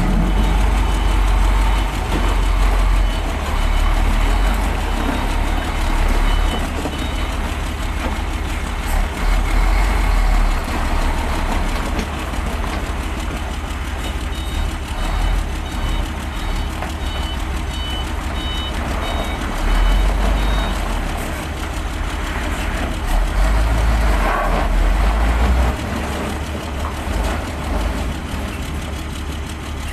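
Dump truck's diesel engine running with a steady low rumble as the loaded-out truck pulls away. About midway a reversing alarm beeps repeatedly for several seconds.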